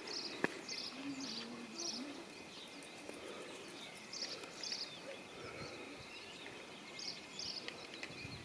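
Small bird chirping, short high notes about half a second apart in several brief runs, over faint outdoor background noise with a thin steady high tone.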